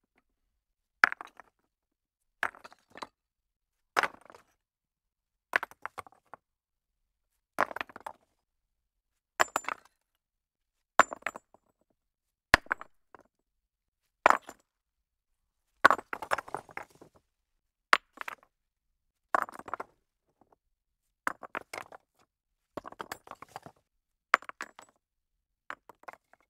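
Stones of 1 to 3 kg dropped one at a time from about half a metre onto a pile of stones. Each drop is a sharp stone-on-stone crack followed by a short clatter as it tumbles and settles. The drops repeat about every one and a half to two seconds, with quiet gaps between.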